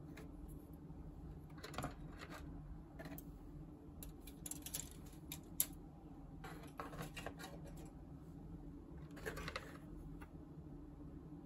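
Plastic model-kit sprues being handled in a cardboard box: light clicks and rattles of styrene runners knocking together and against the box, in several short bursts, with one sharp click about halfway through. A faint steady low hum sits underneath.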